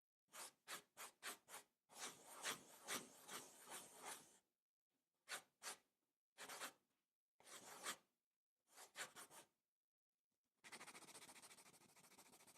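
Pencil on paper drawing fast lines: quick scratchy strokes in short groups with pauses between them, then a continuous rapid back-and-forth scribble starting near the end.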